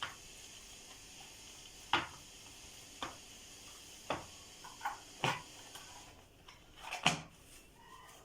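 Kitchen utensil clinking against dishes as raw minced-meat filling is spooned into bread: several short, light knocks about a second apart, the loudest near the end.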